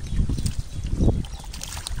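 Hands and a metal bowl working through thick, watery pond mud: irregular wet squelching and sloshing, strongest just after the start and again about a second in.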